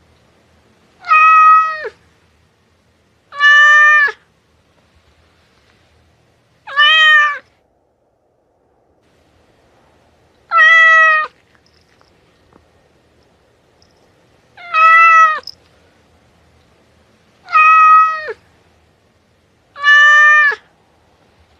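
Domestic cat meowing: seven short, alike meows, each under a second and dropping in pitch at the end, a few seconds apart.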